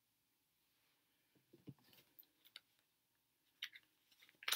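Faint, scattered clicks and taps of tarot cards being handled, starting about a second and a half in, with the sharpest click near the end.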